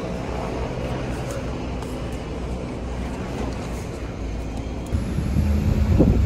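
Double-decker tour bus running in traffic, heard from its open top deck. About five seconds in the rumble grows louder and rougher as wind buffets the microphone.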